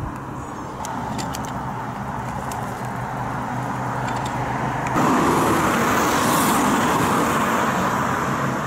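Road traffic: a motor vehicle's engine and tyres drawing near on a mountain road, growing gradually and then much louder from about five seconds in as it passes close.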